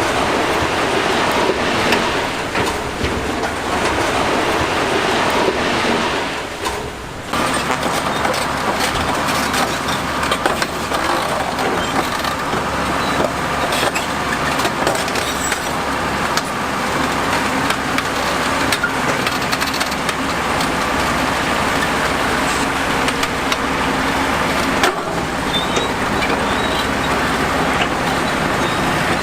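Heavy construction machinery at work: an engine running steadily under continuous clatter and rattling. It breaks off briefly about seven seconds in, then resumes.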